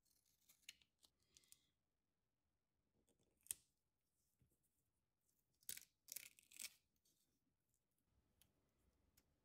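Scissors snipping through blue adhesive tape, then the tape being handled and peeled in a few quick crackly tears about six seconds in, with a single sharp click a little before. All of it faint.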